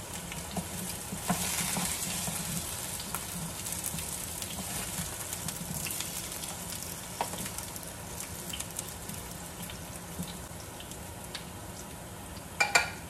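Hot cooking oil sizzling steadily in a frying pan as fried potato and carrot chunks are lifted out, with scattered light clicks and a sharp double knock near the end.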